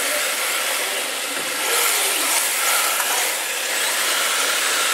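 Radio-controlled drift cars running and sliding across a smooth hard floor: a steady, high hiss of small motors and tyres with a faint constant whine.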